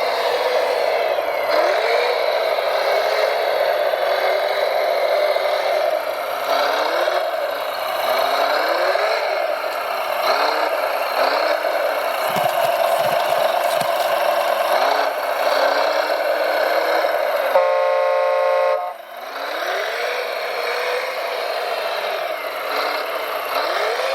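Radio-controlled model trucks and construction machines working: a steady motor and engine-sound noise whose whine rises and falls in pitch, a few low knocks about twelve to fourteen seconds in, and a short horn blast about eighteen seconds in.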